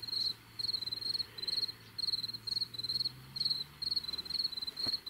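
Insect, like a field cricket, chirping steadily: a regular train of short, high, trilled chirps, about two a second.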